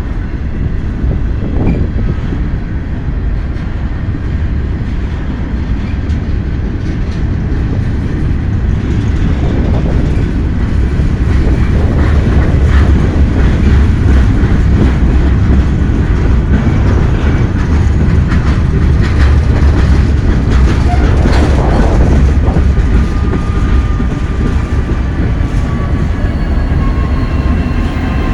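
EMD two-stroke diesel locomotives running in a rail yard: a heavy, steady diesel rumble that grows louder about a third of the way in, with a few metallic clanks. In the last few seconds a thin, high whistle begins to come in over the rumble, the start of the EMD turbocharger whine.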